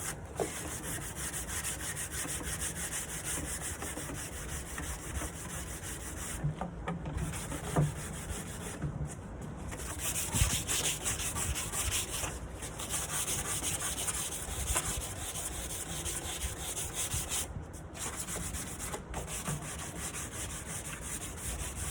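Sanding a wooden nightstand: a steady scratchy rubbing that pauses briefly several times.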